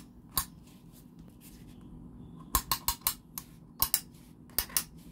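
Sharp clicks in quick runs of two to four from the self-locking mechanism of a baseball-bat-style steering wheel lock being worked by hand.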